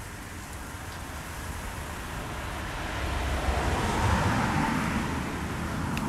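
Outdoor rushing noise that builds to a peak about four seconds in and then eases off slightly.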